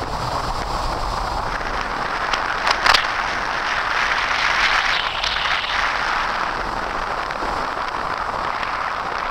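A motorboat under way: a steady rush of wind and water, with a few short crackles near three seconds in.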